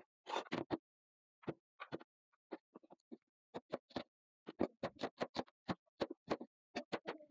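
Kitchen knife chopping green chillies on a plastic cutting board: sharp knocks, scattered at first, then a quick steady run of several chops a second from about halfway in.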